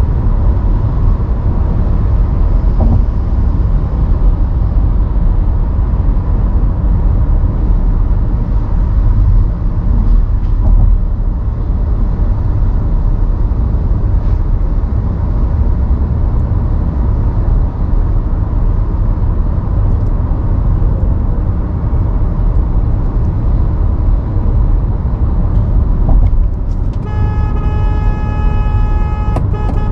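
Steady low rumble of a car driving on city roads, with traffic noise around it. Near the end a vehicle horn starts sounding and is held.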